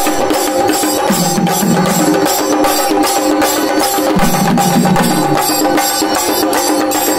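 A troupe of chenda drums played with sticks, beating a fast, dense rhythm, with steady held pitched tones sounding along with the drumming.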